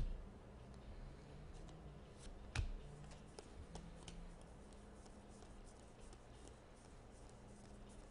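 Stack of trading cards being shuffled and flipped through in the hands: faint light ticks and clicks of card edges sliding over one another, with a sharper knock about two and a half seconds in.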